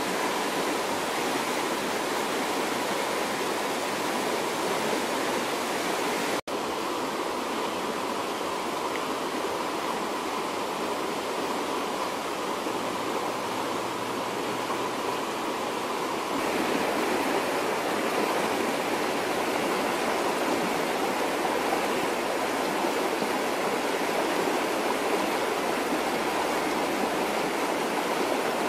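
A swollen river running fast, a steady rush of water. It cuts out for an instant about six seconds in and gets a little louder about sixteen seconds in.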